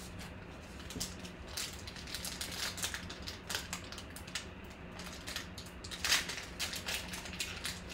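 Foil wrapper of a trading-card pack crinkling and tearing as it is pulled open by hand: a run of short, sharp crackles, loudest about six seconds in.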